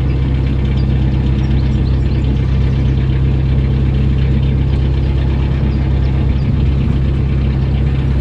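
A narrowboat's inboard diesel engine running steadily at a constant low note as the boat cruises slowly along the canal.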